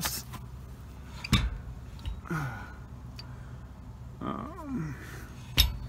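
A steady low hum with two sharp knocks, one about a second and a half in and one near the end, and a brief low murmured voice between them.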